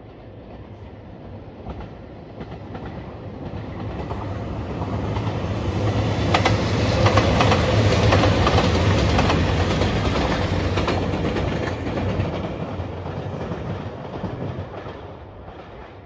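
JR Shikoku 2700 series diesel limited-express train passing: its low engine and wheel rumble builds to a peak about halfway through, then fades. Around the peak come a run of sharp clickety-clack knocks from the wheels crossing rail joints.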